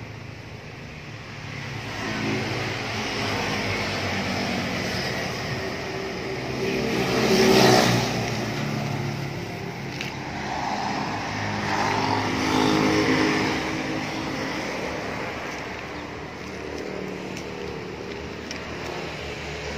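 Suzuki A100's two-stroke single-cylinder engine running, revved up and let back down several times, the biggest rev about seven and a half seconds in.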